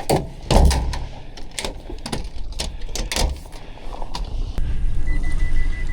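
Irregular knocks, clunks and rattles of a small boat and its gear being handled while it is put into the water, with a steady high tone starting near the end.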